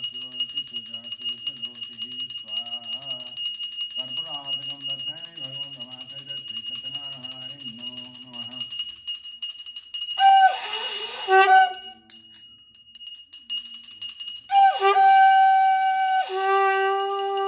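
A puja hand bell rings continuously for aarti while a low voice chants in the first half. Then a conch shell is blown twice: a short blast about ten seconds in, and a longer held note from about fourteen seconds. Each blast slides into its pitch.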